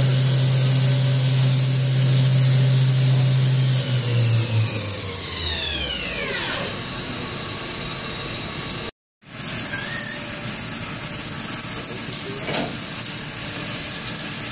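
Spindle of a Hurco BMC 4020 vertical machining center whining at high speed, then spinning down about four seconds in, its whine falling in pitch over about two seconds and dying away. After a sudden brief dropout near the middle, a steady machine hiss runs on.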